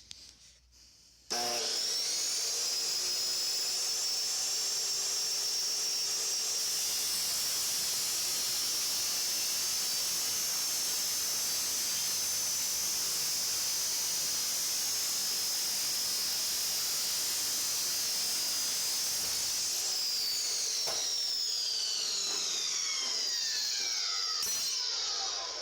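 An abrasive-disc power tool starts about a second in and runs at a steady high whine with a grinding hiss. Near the end it is switched off and the whine falls in pitch as the disc spins down.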